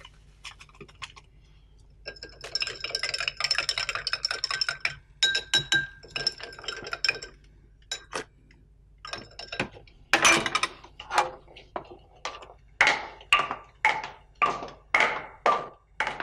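A metal spoon stirring in drinking glasses, clinking against the glass: quick rattling runs of clinks at first, then separate ringing clinks about twice a second in the second half.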